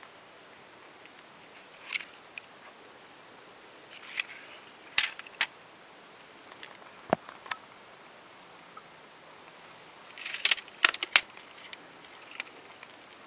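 Handling noise from a small plastic device: scattered sharp clicks and taps with short rustles, the busiest cluster of quick clicks coming near the end. No alarm tone sounds.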